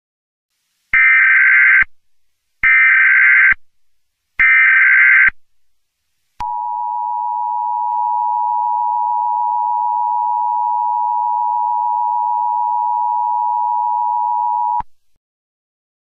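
Emergency Alert System tones: three short bursts of SAME digital header data, then the steady two-tone EAS attention signal, held for about eight seconds before it cuts off.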